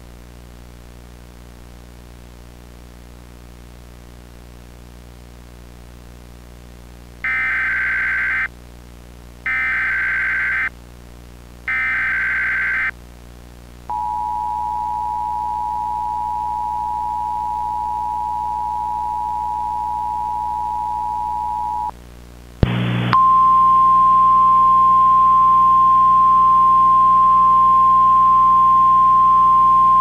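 Emergency Alert System tones: three short bursts of warbling SAME header data about a second each, starting about seven seconds in, then the two-tone EAS attention signal held for about eight seconds. After a click and a brief burst of static comes a single steady, louder alert tone over hiss, the NOAA Weather Radio warning alarm tone.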